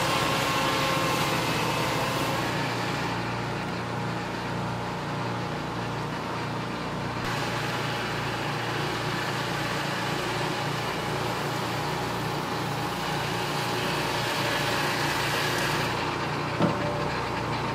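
Peterson Automated Swingblade Mill running: its engine hums steadily while the circular saw blade spins and cuts a board along a log. A single sharp click comes about a second before the end.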